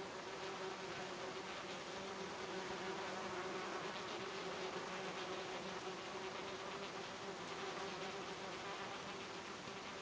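Wasps buzzing at close range: a steady, wavering hum of several overlapping pitches.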